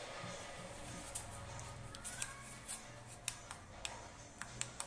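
Faint handling noise: about eight light, irregular clicks and taps over a low, steady hum.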